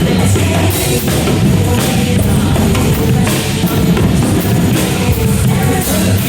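Drum kit played with repeated cymbal and drum hits, along with a loud rock music track.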